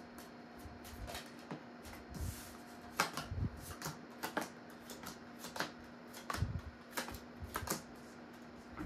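A deck of round fortune-telling cards being shuffled in the hands and dealt out onto a table, a run of irregular clicks and soft slaps as cards riffle and are set down.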